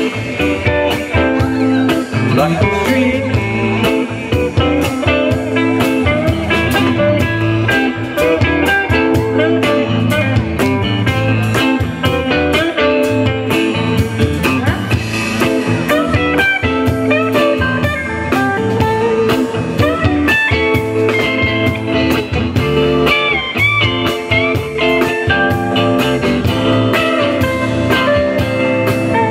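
Live blues-rock band playing an instrumental passage: electric guitar lead lines with bent notes over bass guitar and a steady drum beat.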